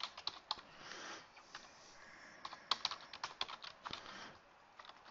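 Typing on a computer keyboard: quick, irregular keystrokes with short pauses, typing out a short line of text.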